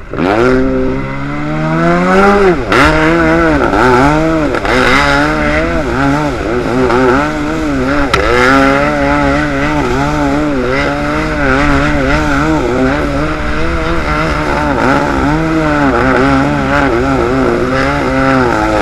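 Jet ski engine revving: it climbs hard at the start, then keeps surging and easing off about once a second as the throttle is worked, over a steady hiss of water.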